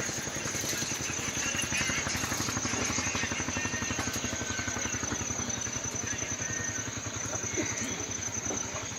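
A small engine running steadily with a rapid, even low pulse, joined by a few faint high chirps.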